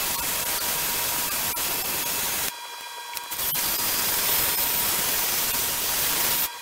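Two long bursts of steady hissing, the first about two and a half seconds long, the second about three seconds, over a faint steady whine that carries on between them.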